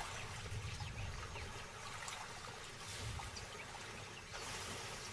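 African buffalo herd at a waterhole, water splashing and trickling steadily at a low level as the animals wade in and drink.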